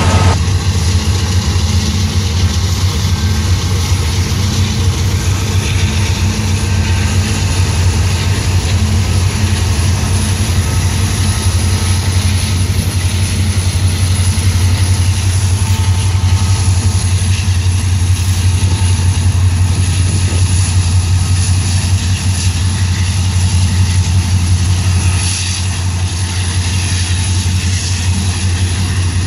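Union Pacific diesel-electric locomotives of a coal train passing close by as mid-train helpers, their engines giving a loud, steady deep drone.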